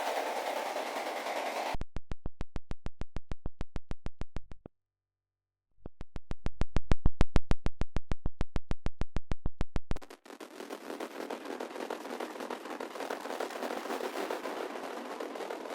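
Synthesized techno sound design playing from Ableton Live: a noisy, hissing texture, then a fast run of evenly spaced percussive hits at about eight a second. The hits cut out for about a second, come back louder with more low-end body, then give way to the noisy texture again about ten seconds in.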